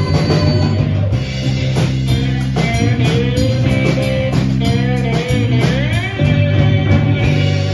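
Live band music led by electric and acoustic guitars: steady low chords under a lead line that slides between notes.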